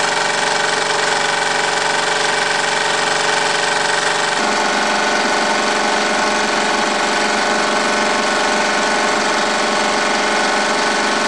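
Wilesco D222 electrically heated model steam engine running steadily under load as it drives a small generator: a continuous hiss with several steady humming tones, which shift slightly about four seconds in.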